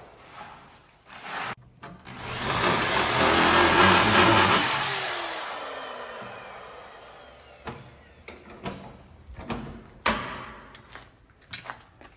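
A power tool's motor runs loudly for about three seconds, then winds down with a falling whine as it coasts to a stop. Scattered clicks and knocks follow, with one sharp knock near the end.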